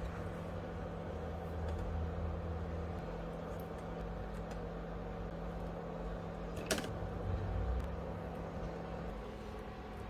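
Steady low mechanical hum with a faint steady tone, and one sharp click about two-thirds of the way through.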